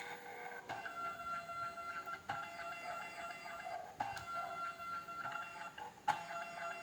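Automatic wire cutting and stripping machine running through its cycles: a steady motor whine as the wire is fed, broken by a sharp clack four times, every one and a half to two seconds, as the blades cut and strip.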